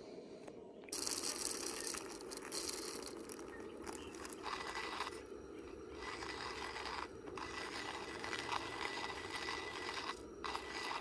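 Hand coffee grinder crunching through beans, a steady gritty grinding with a few short pauses.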